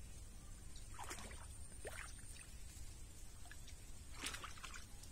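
Shallow muddy water sloshing and splashing as a round mesh hand net is swept through it by someone wading, in a few short bursts: about a second in, near two seconds, and again past four seconds.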